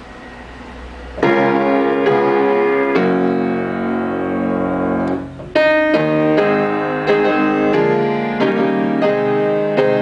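A low hum for about the first second, then an upright piano starts playing: a held chord comes in, breaks off briefly about five seconds in, and is followed by a run of struck chords.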